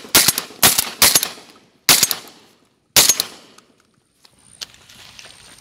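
Rapid shotgun fire at ducks: about five loud blasts, some close together, in the first three seconds, each with a short echoing tail. After that only a few faint clicks.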